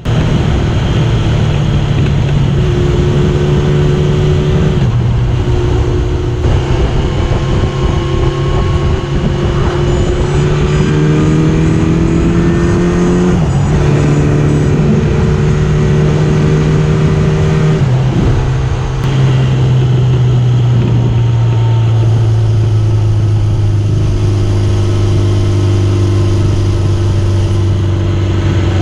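Honda CB750 air-cooled inline-four engine running on the move. Its note holds steady, rises about ten seconds in, drops sharply a few seconds later and again around eighteen seconds, then sinks slowly over the last third.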